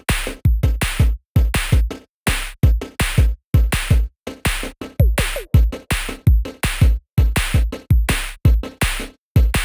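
Electronic music with a punchy drum-machine beat: kick and snare-like hits in short stop-start phrases with brief silent gaps.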